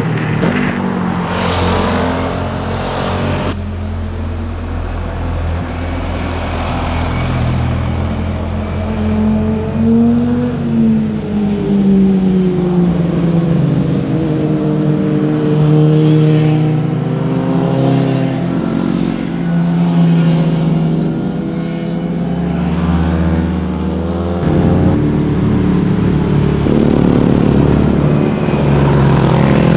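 Motorcycle engines as the bikes ride through hairpin curves, their pitch rising and falling as they rev up and ease off. The sound changes abruptly twice as one pass gives way to the next.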